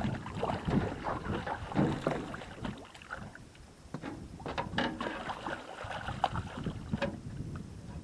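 Water splashing and sloshing around a small boat, with irregular sharp knocks and wind on the microphone.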